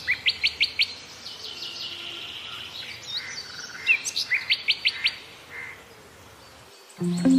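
A bird chirping in two quick bursts of rapid high notes, about three and a half seconds apart. Guitar music starts near the end.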